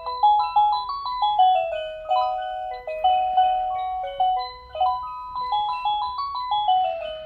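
Battery-powered Engstler cuckoo clock playing its electronic melody: a simple tune of bell-like notes, each struck and then fading.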